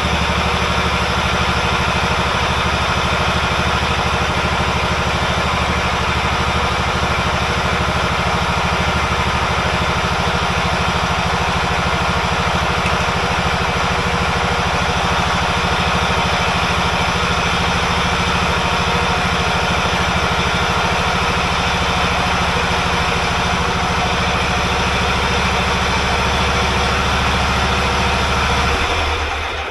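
Engine of an old John Deere riding tractor running steadily at a constant speed, then switched off about a second before the end, the sound dying away.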